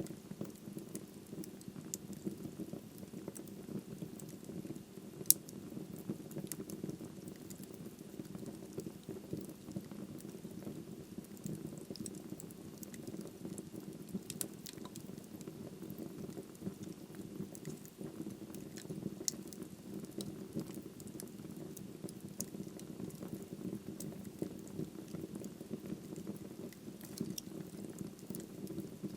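Wood fire crackling in a fireplace: a steady low rush of burning logs with frequent small pops and snaps, and one sharper pop about five seconds in.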